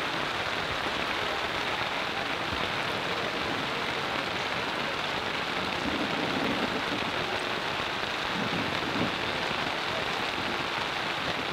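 Heavy rain falling steadily, a dense, even hiss of drops with no letup.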